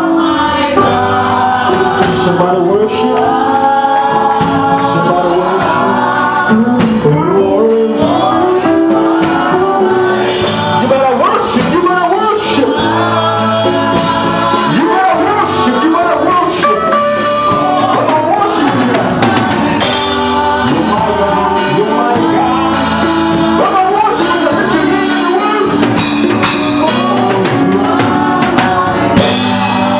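Live gospel music: a band with drum kit playing while voices sing, the vocal lines too blended with the band to make out words.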